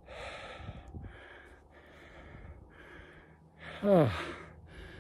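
A man breathing hard as he recovers from sets of double kettlebell overhead presses: about five quick, breathy breaths in the first three seconds, then a loud voiced exhale that falls in pitch about four seconds in.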